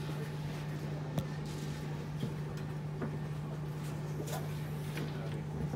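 Steady low hum of a metro train standing at the platform, with scattered clicks and taps and faint voices of passengers.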